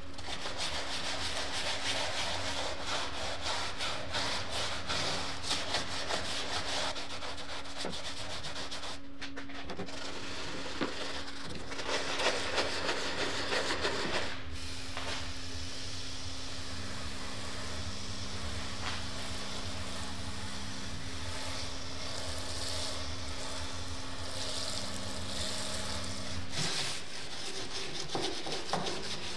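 A sponge scrubbing a soapy rubber drift-trike tyre: a steady wet rubbing. Near the end it changes to a stiff brush scrubbing the wheel rim. A steady low hum runs underneath.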